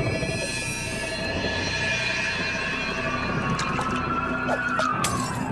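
Shimmering magical sound effect: a whistle-like tone rising slowly, with a wavering tone above it, then a second tone that climbs and sinks near the end, with a few crackles and one sharp click about five seconds in.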